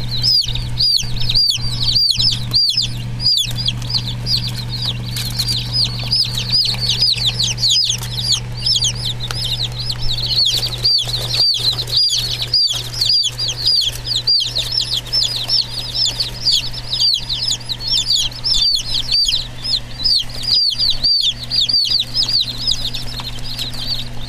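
A brood of baby Black Broiler chicks peeping continuously, many high chirps overlapping several times a second, over a steady low hum.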